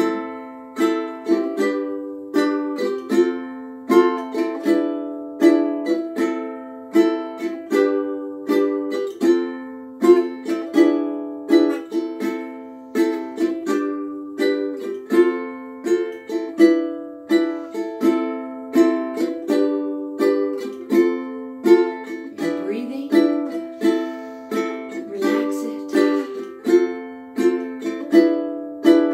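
Ukulele strummed in a swung cowboy strum, a steady long-short rhythm, cycling through the chords A minor, G, F and E7 with one strum pattern per chord.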